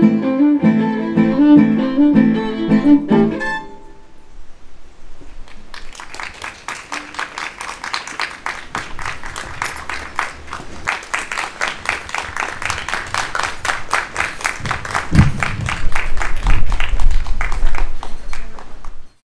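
A violin and acoustic guitar duo plays the closing bars of a piece, ending about three and a half seconds in. After a short pause, an audience claps steadily, growing louder near the end before cutting off suddenly.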